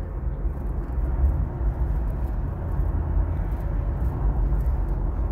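Road noise inside a moving car's cabin: a steady low rumble with no sudden events.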